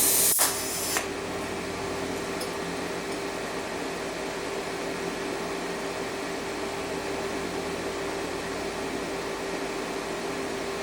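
A welding arc struck briefly to start the shielding argon flowing: a harsh burst lasting about half a second, then a second short burst about a second in. After that comes a steady machine hum with a constant tone.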